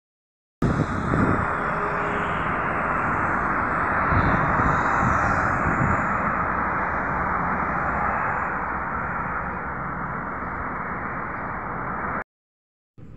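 Steady road-traffic noise from cars driving past on a multi-lane road. It starts after a brief silent gap and cuts off suddenly about a second before the end.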